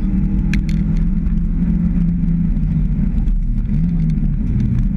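Mitsubishi Lancer Evo VI rally car's turbocharged four-cylinder engine running hard at speed, heard from inside the cabin, with loose gravel ticking against the underbody. About three seconds in the engine note dips briefly, then climbs again.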